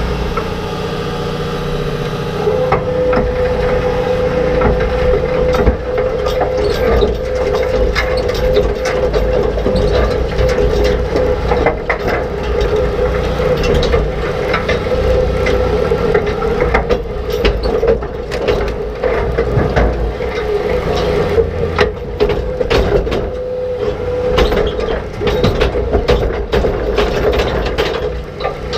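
An old rock picker's rotating tine reel running, with rocks, dirt and roots clattering and knocking irregularly against its steel tines and basket. A steady whine comes in about two and a half seconds in, over the low drone of the towing tractor's engine.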